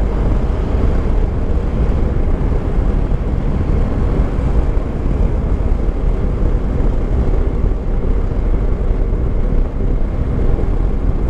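Yamaha Tracer 9 GT's three-cylinder engine running steadily while riding along at an even speed, mixed with wind rush on the helmet-mounted camera.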